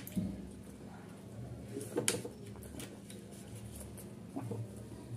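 Eating at a table: hands mixing and scooping biryani rice on plastic plates, with a few soft clicks and taps, the sharpest about two seconds in, over a low steady hum.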